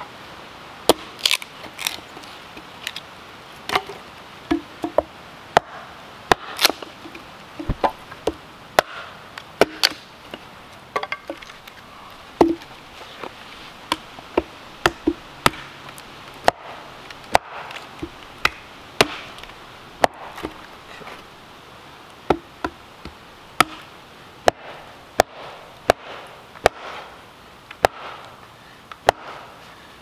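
Hardwood being chopped for firewood: a run of sharp, irregular knocks, about one or two a second.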